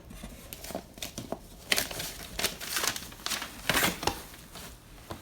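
Rustling and crinkling of papers and other items being handled and moved about, in a run of irregular short bursts.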